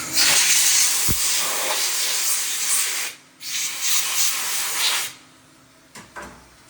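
Compressed air blasting as a loud hiss in two bursts, the first about three seconds long and the second under two, each cutting off sharply. Two faint clicks follow near the end.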